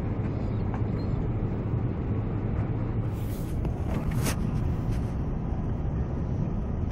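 Steady low road and wind rumble inside a moving pickup with the side window rolled down, with two brief hissing whooshes about halfway through.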